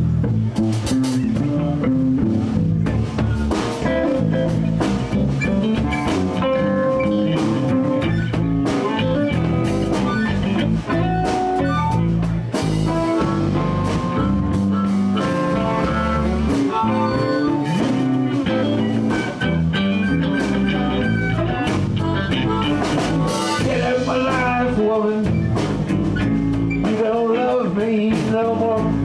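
Live blues band playing an instrumental passage in the key of A: electric guitars over bass guitar and a drum kit.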